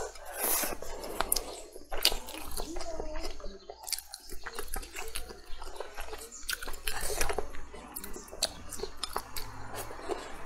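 Close-miked eating: wet chewing and smacking of a mouthful of braised chicken and rice, with many irregular sharp clicks.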